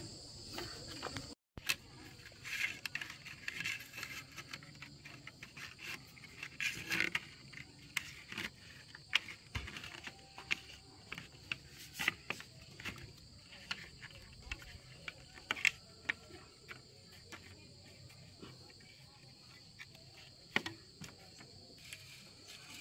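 Steady high insect chirring, with scattered sharp clicks and knocks throughout.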